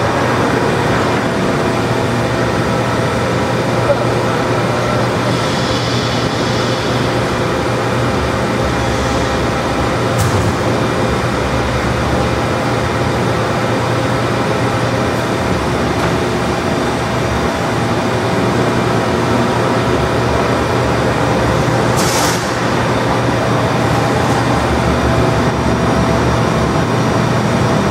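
1987 Harrison M500 gap bed engine lathe running with no cut, its big chuck spinning at a high spindle speed, with a steady whine of many gear tones from the headstock gearing. A brief hiss comes about two-thirds of the way through.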